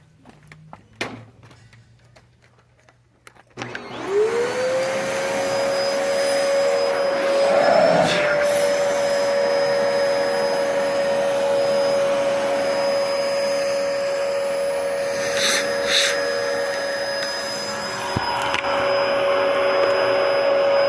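Bagless vacuum cleaner switched on a few seconds in, its motor spinning up quickly to a steady high whine and running on.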